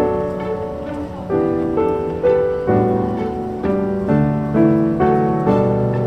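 Background piano music: a slow melody of single struck notes over held chords, a new note about every half second, each fading before the next.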